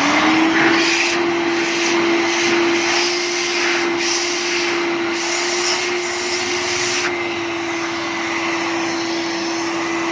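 Secondhand vacuum cleaner switched on for a test run, its motor running at a steady pitch with a whine over the rush of air. It is being tried after its clogged filter was cleaned, because its suction had been weak.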